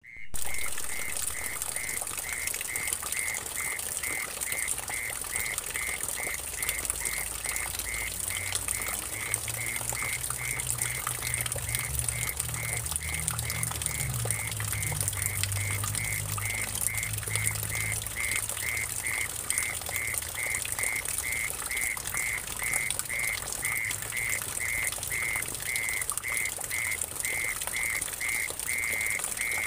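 Mole cricket trilling steadily in an even pulsing rhythm, about two pulses a second, over water trickling and splashing into a muddy pool.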